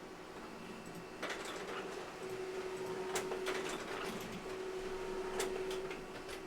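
Trading-card box and packs being handled on a table: scattered clicks, taps and scraping of cardboard and plastic over a steady hum.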